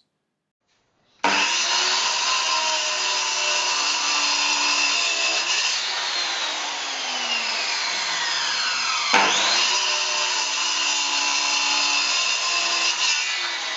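Corded Hitachi circular saw starting up about a second in and cutting through timber. Its high whine slides steadily down through the middle, jumps sharply back up just after, and begins sliding down again near the end.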